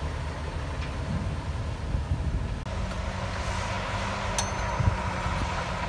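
Heavy diesel construction machinery running steadily with a low engine drone. A brief break comes about two and a half seconds in, after which a steady low hum joins, and a single short click sounds near the end.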